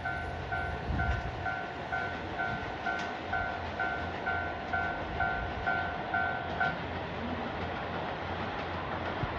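Level-crossing alarm dinging a little over twice a second over the low rumble of a passing KiHa 183 series diesel limited express train. The alarm stops about seven seconds in, a sign that the train has cleared the crossing, and the train's rumble carries on.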